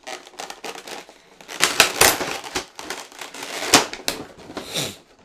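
Plastic packaging crinkling and crackling as an action figure and its accessories are worked out of the tray, irregular, with a few sharper snaps about two and four seconds in.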